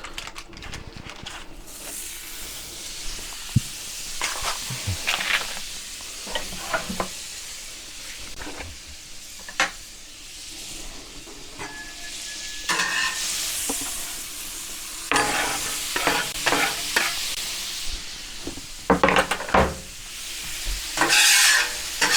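Sliced onions sizzling on a griddle plate, with a metal spatula scraping and knocking on the plate as they are stirred; the scraping gets louder and busier in the second half.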